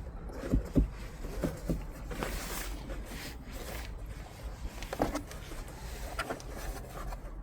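Handling noises inside a car: scattered light knocks and a brief rubbing rustle on the interior trim, over a steady low hum.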